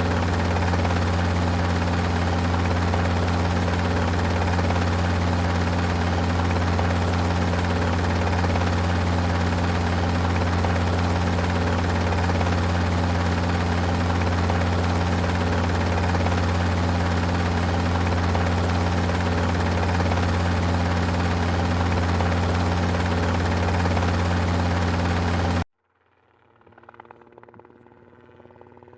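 Helicopter running steadily, its rotor and engine making an unchanging low drone that cuts off abruptly near the end. A fainter engine sound then starts and slowly grows.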